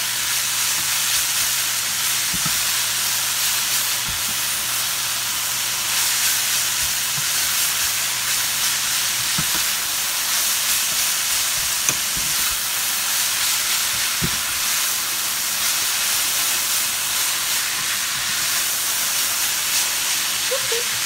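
Shredded cabbage and carrot frying in a stainless steel skillet on medium heat: a steady sizzle, with a plastic spatula stirring and a few soft knocks against the pan.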